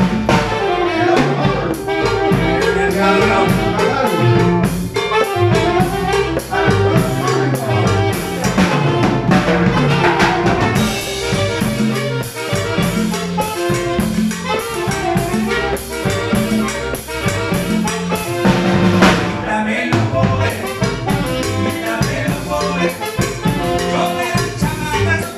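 A small band playing a song live in a room: electric bass, congas, drum kit and keyboard together, with a steady beat.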